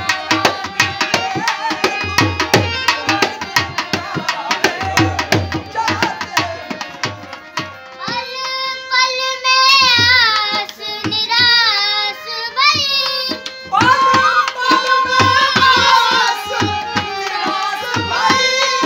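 Bhajan accompaniment: rapid hand-drum strokes with harmonium and bamboo flute. About eight seconds in, a child's voice starts singing a wavering melody over a steady harmonium drone while the drum carries on more lightly.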